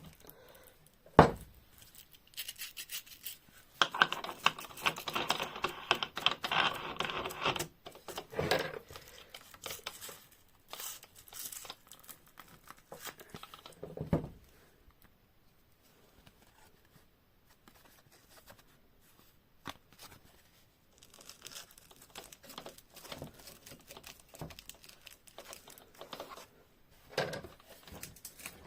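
Hands-on workshop handling noises: a sharp knock about a second in, then a few seconds of rough scraping or rubbing, followed by scattered knocks and short rustles.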